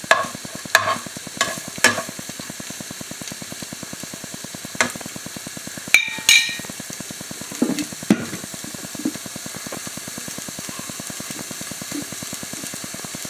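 Garlic and shallot frying in oil in a pan, a steady sizzle, with a metal spoon scraping and clanking against the pan now and then. The loudest clatter, with a brief ringing, comes about six seconds in.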